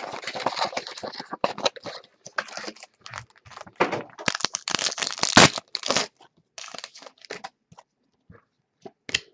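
Plastic wrapping of a trading-card box being torn open and crinkled, with dense rustling and snapping for about six seconds, then a few light clicks and shuffles as the cards are handled.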